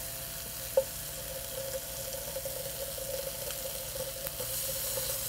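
Mushrooms, garlic and arugula sizzling steadily in a frying pan, with a single soft tap about a second in as cream cheese is dropped into the pan.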